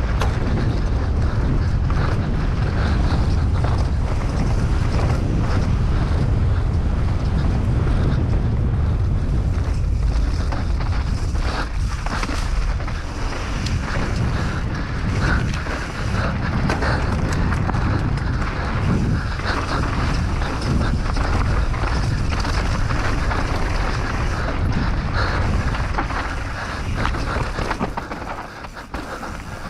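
Mountain bike descending a rough enduro trail at speed: wind rumbles on the microphone over tyre noise on dirt, with frequent knocks and rattles from the bike over rough ground. It gets quieter near the end.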